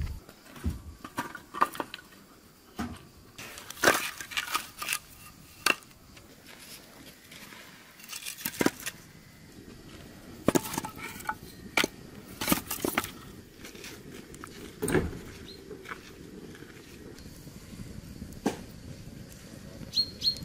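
Fired bricks and split firewood logs being set down to build an open fire pit: a series of separate knocks and clunks, a second or more apart.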